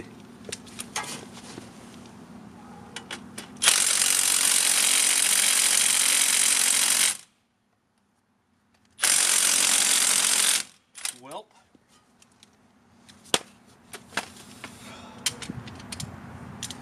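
Cordless impact wrench hammering on the large rear bolts of a Dana 60 front hub bearing, in two bursts of about three and a half seconds and a second and a half, the second ending with the motor winding down. Light clanks of tools follow.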